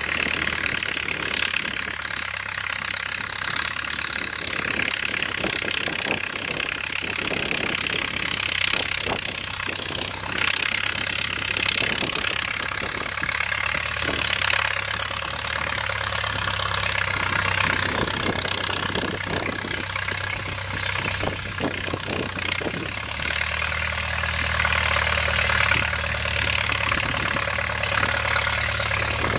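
Farmall 300 tractor engine running steadily under load as it pulls a disc harrow and a quack digger through tilled soil.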